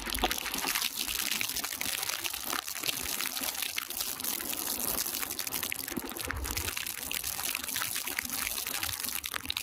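Steady rushing noise of wind and rain at the open doorway of a moving train, with the train's running noise and occasional low thumps underneath.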